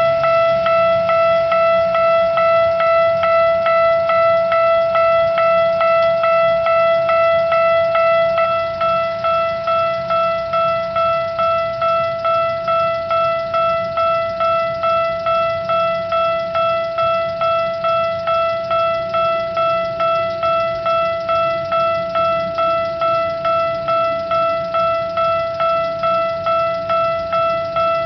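Japanese railway level crossing's electronic warning bell ringing in a fast, regular series of identical dings. A little over eight seconds in it drops slightly in level and each ding rings out and fades more distinctly.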